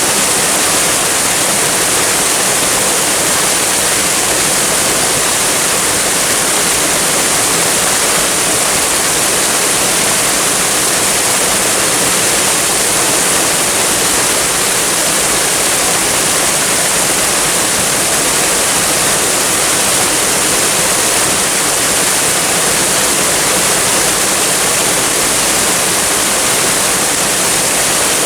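Waterfall rushing steadily, a dense, even hiss of falling water with no breaks.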